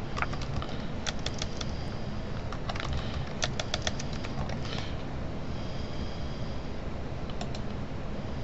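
Computer keyboard keystrokes in short runs with pauses between them: a few about a second in and a quicker run between about three and four seconds in, as a file name is typed and corrected.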